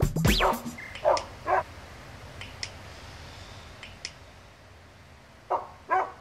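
A dog barks twice, then a dog-training clicker clicks in quick pairs, twice, and the dog barks twice more near the end.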